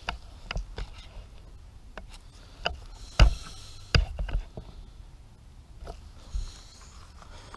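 Scattered clicks and knocks of handling, as someone moves about and reaches toward the outboard's lower unit, over faint rustling; the loudest knocks come a little after three seconds and at about four seconds.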